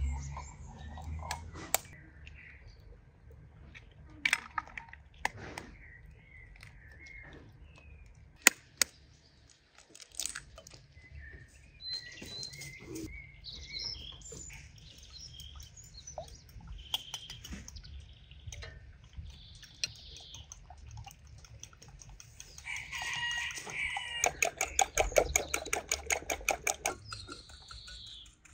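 Chickens clucking, with birds chirping, over scattered sharp knocks and clinks. Near the end a louder pitched call is followed by a few seconds of fast, even clicking.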